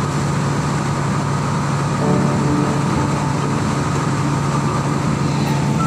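An outrigger boat's engine running steadily under way, a constant low hum over the rush of churning water and wind.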